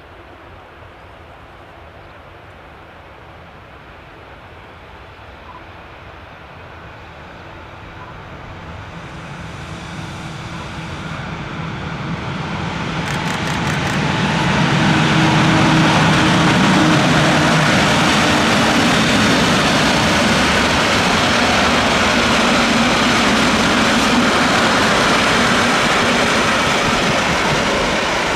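Rhaetian Railway electric freight train approaching and passing close by. The rumble grows steadily as the red electric locomotive draws near and is loudest about halfway through. It then stays loud and steady as the wheels of the container wagons run over the rails.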